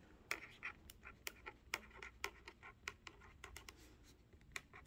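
Felt-tip pen writing on paper over a clipboard: faint, short scratchy strokes, irregular, two or three a second, as letters are written out.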